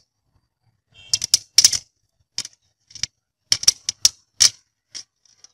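Small steel screws clicking and tapping against a screwdriver's tip and a sheet-steel tray as the freshly magnetized tip picks them up: about a dozen sharp, irregular clicks.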